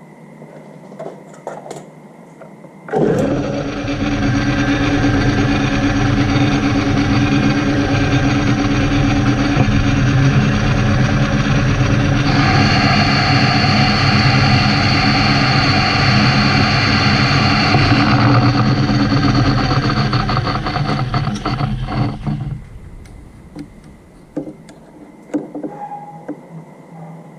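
Metal lathe switched on about three seconds in and running steadily with a layered motor and gear hum while turning a steel gear blank to size; it is switched off and stops a little after three-quarters of the way through. Light clicks and knocks of handling come before and after.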